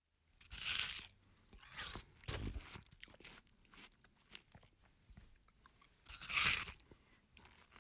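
A person biting into and chewing juicy watermelon: wet, crunchy bites, the biggest about a second in, near two and a half seconds and again past six seconds, with smaller chewing crunches between.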